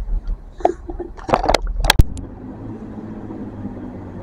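A few sharp clicks and knocks, the loudest about two seconds in. Then a diesel multiple unit's engines run steadily as the train moves off.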